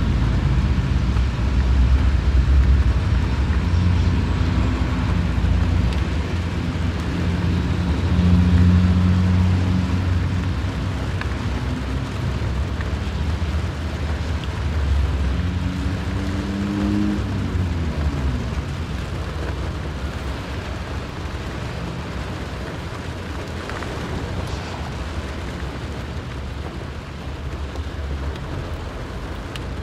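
Road traffic in the rain heard from inside a parked car's cabin: the low engine rumble of passing vehicles over a steady rain hiss. About halfway through, a passing vehicle's engine note falls in pitch as it goes by, and the traffic eases somewhat after the first third.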